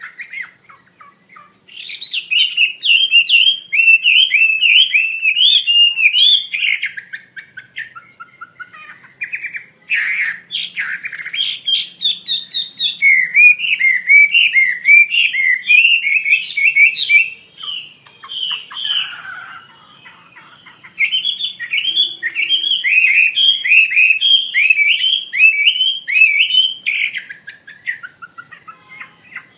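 Chinese hwamei singing vigorously: long, loud phrases of quick, varied notes that rise and fall, in four bursts of a few seconds each with short pauses between them.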